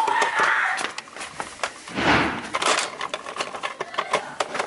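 A run of sharp clicks and knocks, with a louder dull thud and rush about two seconds in.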